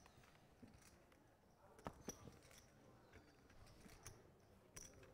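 Near silence: faint room tone with a handful of short, quiet clicks scattered through it, the clearest a little under two seconds in.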